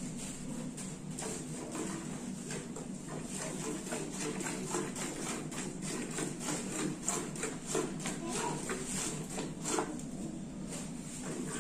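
Cow being milked by hand: milk squirts into a stainless steel bucket that is already part full of milk, in a steady rhythm of short spurts as the hands pull the teats in turn.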